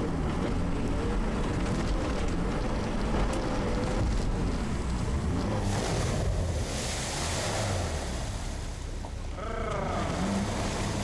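Sherp amphibious ATV's diesel engine running steadily as the vehicle drives off the bank into a river, with a loud rush of splashing water from about six seconds in as its big tyres plough through.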